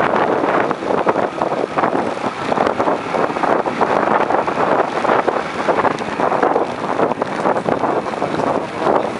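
Wind buffeting the microphone of a moving motorcycle: a rough rush that keeps rising and falling, with the bike's running noise mixed underneath.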